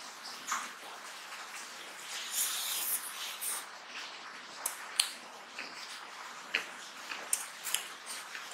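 Close-miked eating by hand: scattered sharp wet clicks and smacks of chewing and fingers working rice and mutton curry, with a brief rustling hiss about two and a half seconds in.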